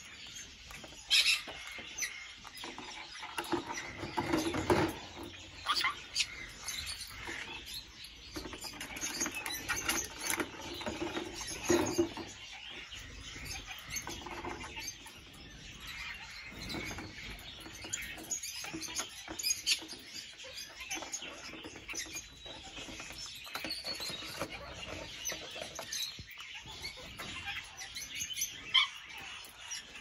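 Caique parrot knocking and shoving plastic jugs about on a wire cage top: irregular knocks and scrapes, a few louder thumps among them, with birds chirping.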